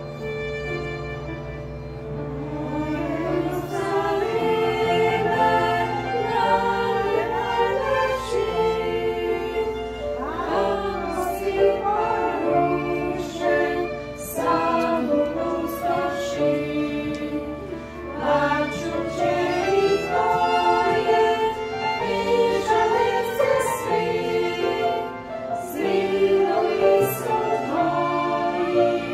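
Mixed choir of men's and women's voices singing in parts, accompanied by a violin. The violin is heard almost alone at first, and the voices come in about two to three seconds in.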